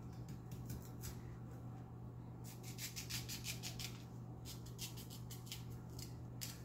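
Kitchen knife paring the skin off a potato held in the hand: quick runs of short scraping strokes, in several groups with brief pauses between. A steady low hum runs underneath.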